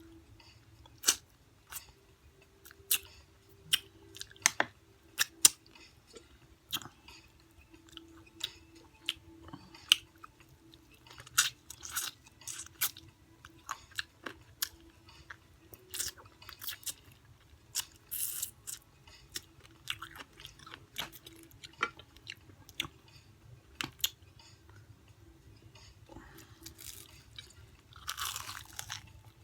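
Close-up eating sounds of extra-crunchy fried chicken: many sharp, irregular crunches and bites with chewing and mouth smacks, a couple of longer crackling crunches in the second half. A faint steady hum sits underneath.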